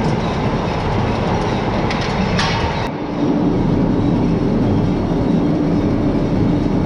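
Potato harvest machinery running with a steady rattling clatter. About three seconds in, the sound shifts and a steady engine drone comes in under the rattle.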